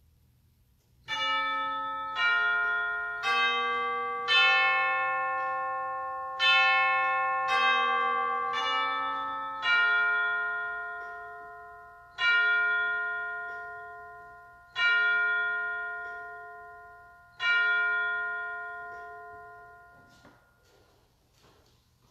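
Church chimes striking a slow melody of eleven bell-like notes: two groups of four about a second apart, then three slower strokes, each note ringing on and fading away.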